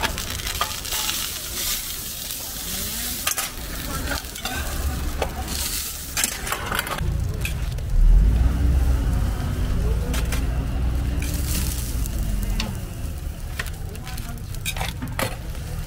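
Sorghum hotteok frying on an oiled griddle with a steady sizzle, broken by many sharp clinks and knocks as stainless-steel presses are set down on the dough. A low rumble rises in the middle and fades again.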